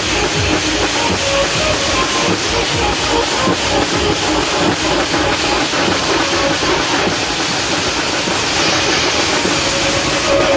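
Teenmaar band drums playing a fast, even beat, so loud and dense that they come across as a steady hiss-like wall of noise.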